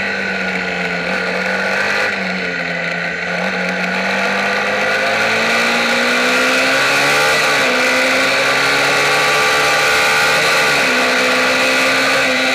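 Onboard sound of a Kayo MiniGP racing motorcycle's small engine running hard at high revs, its pitch sagging and then climbing with the throttle. Two brief sharp dips in pitch come about seven and eleven seconds in.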